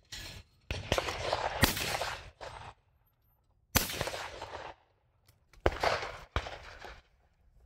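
Shotgun shots at clay targets: a pair about a second in, a single shot near four seconds, and another pair near six seconds, each shot with a short echoing tail.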